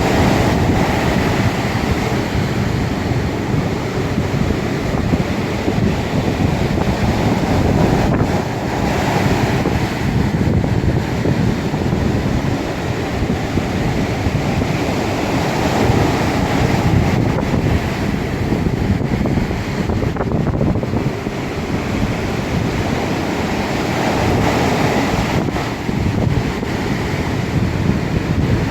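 Ocean waves washing and breaking on the shore in a continuous surge that swells and eases every several seconds, with wind rumbling on the microphone.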